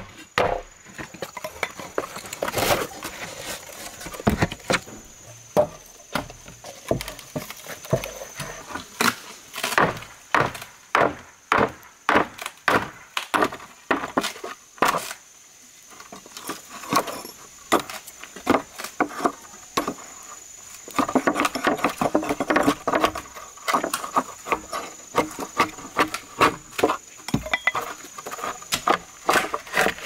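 Wood being struck over and over by a hand tool, chopping or hammering, in irregular sharp blows up to about two a second.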